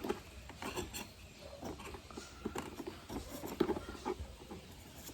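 Light, scattered clicks and scratches of small parts being handled, a few ticks at irregular intervals.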